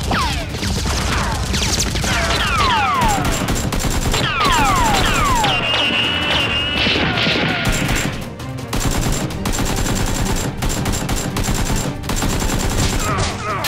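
Rapid, continuous automatic gunfire sound effects. Through the first half they are mixed with many falling whistles like passing bullets or ricochets. Background music runs underneath.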